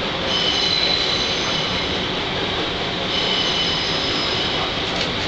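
Train wheels squealing on curved track as a steam-hauled train rolls slowly in, over a steady rumble. The high squeal of several tones drops out briefly around the middle, then comes back.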